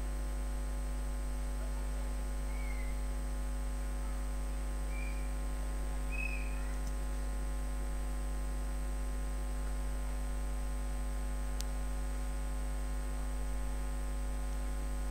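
Steady electrical mains hum with many buzzing overtones and a faint high whine, unchanged throughout. A few faint short chirps sound in the first half, and a single faint click comes past the middle.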